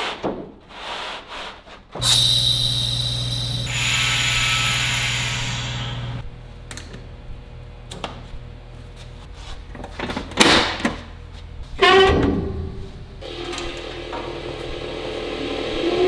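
SICAR wide belt sander being set up. A sanding belt rubs and scrapes as it is slid into place, then a loud hiss with a low hum starts suddenly and lasts about four seconds. Scattered knocks and scrapes follow, and a rising whine begins at the very end as the machine spins up.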